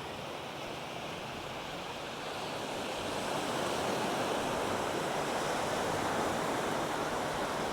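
Sea surf washing up on a sandy beach, a steady rush of water that swells louder about three seconds in as a wave comes ashore.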